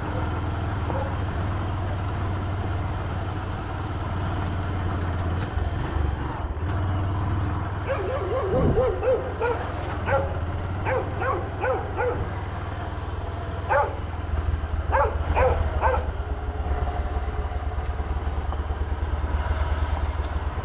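Dogs barking repeatedly at a passing motorcycle, a cluster of barks and yelps from about eight seconds in to about sixteen seconds, over the steady low drone of the motorcycle engine running at slow speed.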